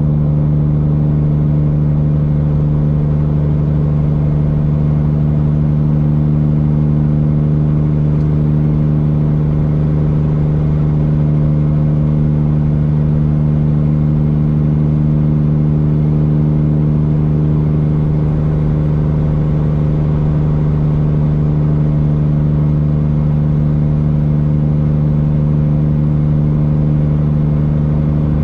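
Straight-piped Cummins diesel in a Peterbilt 379 semi running at a steady highway cruise, heard from inside the cab: a loud, even drone with no shifts or changes in pitch.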